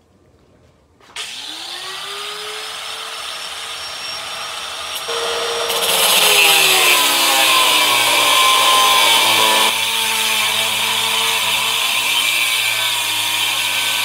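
Angle grinder with a cut-off wheel starting about a second in, its whine rising as it spins up, then cutting through a flat iron bar: from about five seconds in it gets louder and the pitch sags under the load of the cut.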